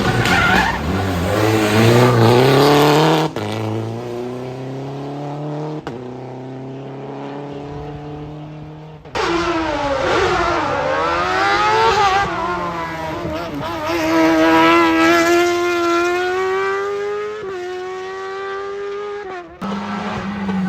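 Race car engines accelerating hard up a hillclimb course, pitch climbing and then dropping at each upshift. The sound cuts abruptly to another pass about nine seconds in and again near the end.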